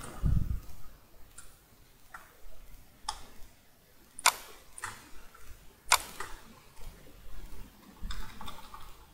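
Scattered, sharp clicks of a computer mouse and keyboard, about eight of them at irregular intervals, as text is selected, copied and pasted. A short low thump comes right at the start.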